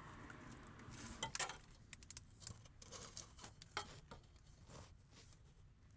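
Faint scattered clicks and taps from a gloved hand handling the oil cooler lines and their corrugated hose loom, with a small cluster of clicks a little over a second in.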